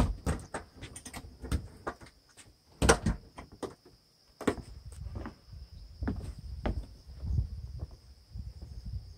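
Irregular knocks and clicks of footsteps on wooden steps and boards, mixed with handling bumps on the phone, the loudest about three seconds in. A steady high insect trill, crickets, runs underneath, with a low rumble in the second half.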